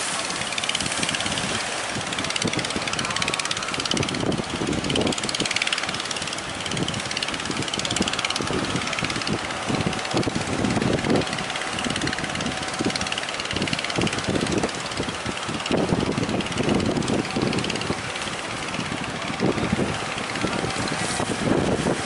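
Surf breaking and wind buffeting the microphone in irregular gusts, with the engines of motorised wooden outrigger fishing boats running under it.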